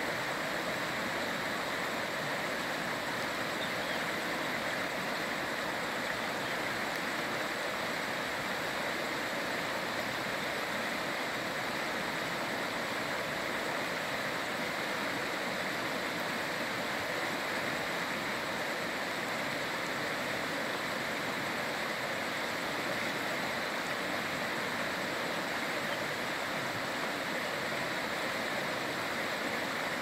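River water rushing steadily over rocks in shallow rapids, a constant hiss with no change in level.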